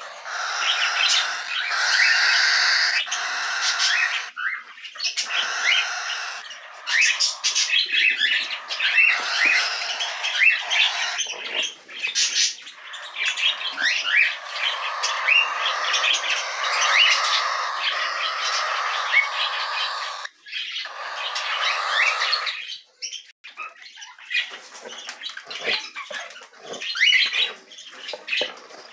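Cockatiels calling almost without pause: raspy, drawn-out squawks mixed with many short chirps. In the last several seconds the calls thin out to scattered chirps among light clicks and rustles.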